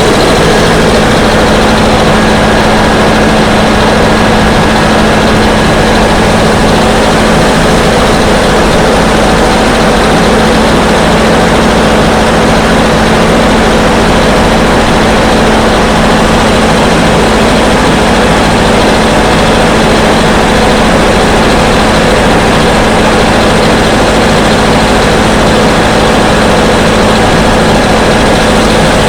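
Air-compressor borewell drilling rig running. A loud, steady drone with a constant hum that does not change.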